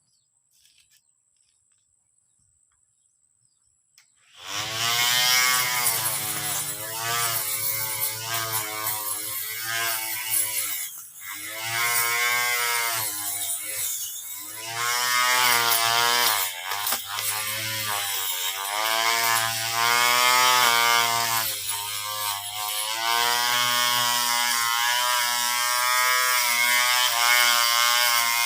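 Cordless electric lawn mower's motor starting up about four seconds in and running loudly, its pitch rising and falling unevenly over a steady low hum.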